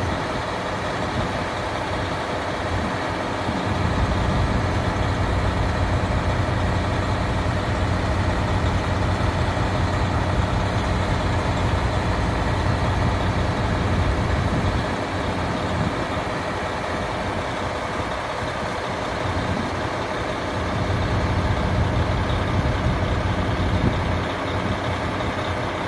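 JR Hokkaido KiHa 183 series diesel railcar standing at idle: its diesel engine and what seems to be the onboard generator run with a steady, deep drone. The drone swells and eases slightly a couple of times.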